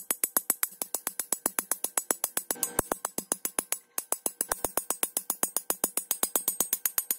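Background music: a fast, even ticking percussion beat of about eight clicks a second, with a brief break about four seconds in.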